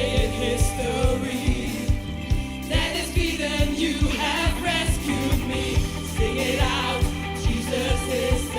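Gospel praise music: singers over a band with a steady drum beat and bass.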